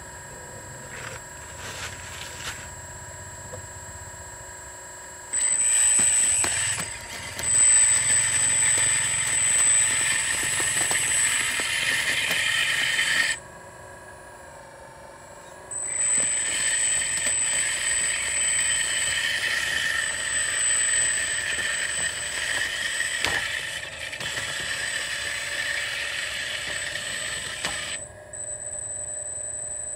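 Radio-controlled model hydraulic excavator working: its pump and motors run in two long loud spells with a steady high whine and gear noise, stopping for a couple of seconds near the middle and dropping to a lower hum near the end.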